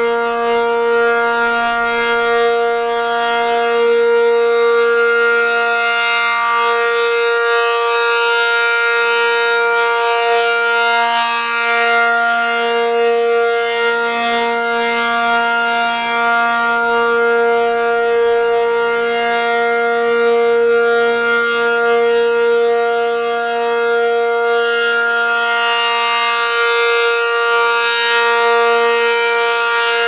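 ACA P-50 rotating outdoor warning siren sounding a steady alert tone at full speed during a test. It grows louder and brighter as the horn swings toward the listener and eases off as it turns away. At the very end its pitch begins to drop as it winds down.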